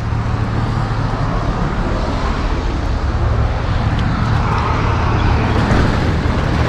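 A vehicle engine running steadily: a constant low hum under a dense, even rushing noise that swells slightly midway.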